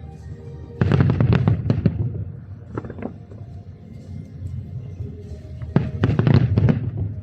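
Aerial fireworks going off in two rapid volleys of bangs and crackle, about a second in and again about six seconds in, with a single bang between them.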